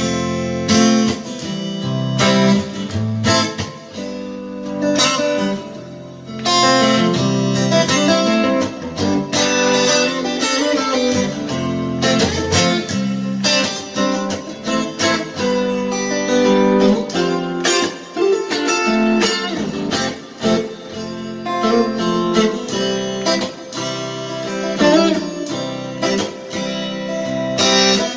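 Guitar with a compressed acoustic tone playing a calm, melodic piece of plucked notes and chords, at an even, full level.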